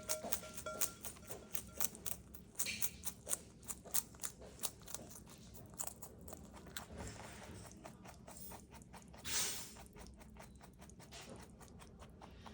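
Rabbit crunching and chewing crisp bok choy: rapid crisp crunches, several a second, thinning out after about halfway, with one louder rustling crunch near the end.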